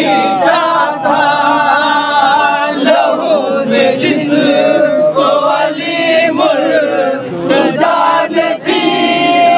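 A group of men chanting a noha, a Shia mourning lament, together in long held sung lines.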